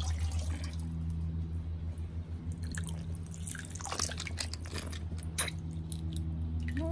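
Water dripping and trickling off a plastic toy train lifted out of a paddling pool, with a few small splashes in the water. A steady low hum runs underneath.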